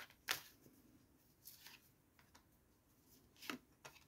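A tarot deck being shuffled by hand: a few soft slaps and rustles of the cards, the sharpest about a third of a second in, with near silence between.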